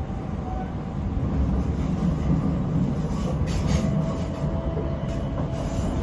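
Class 455 electric train running on the rails: a steady low rumble with a faint motor whine and a few wheel clicks over rail joints about halfway through and near the end.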